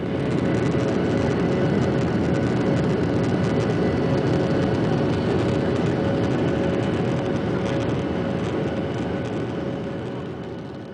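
Jet airliner cabin noise in flight: the steady roar of the engines and rushing air with a steady hum, fading out near the end.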